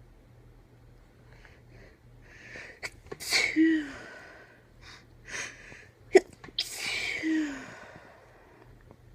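A woman sneezing twice, about three seconds apart. Each sneeze comes after a short drawn-in breath and ends in a voiced tail that drops in pitch. These are induced sneezes, set off on purpose to clear a tickle in the nose.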